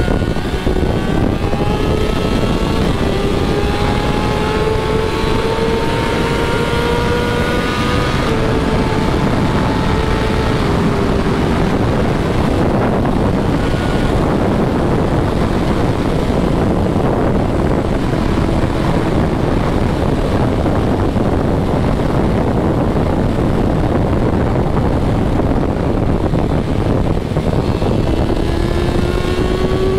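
BMW S1000RR inline-four sport-bike engine pulling hard at highway speed, its pitch climbing for the first several seconds. The engine then levels off and fades under a steady rush of wind on the microphone as the throttle eases. Near the end the pitch starts to climb again.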